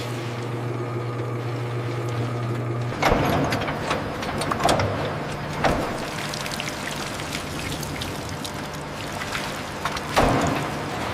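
Factory machinery running with a steady low hum. About three seconds in, this gives way to a hissing, rattling noise with a few sharp knocks, the loudest near the start of that change and again near the end.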